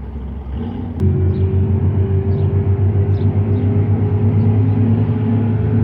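Jet boat engine running with a steady low drone that becomes abruptly louder about a second in.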